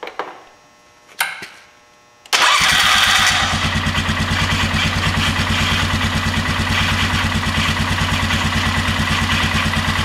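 2000 Polaris Sportsman 500's freshly replaced electric starter cranking the single-cylinder four-stroke engine, which starts about two seconds in and settles into a steady, even idle. The cranking sounds as if something is hanging up, which the owner puts down to a little rust in the long-unused starter.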